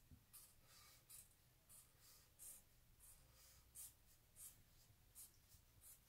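Felt-tip marker drawing short strokes on paper: faint, about ten strokes, a little over half a second apart.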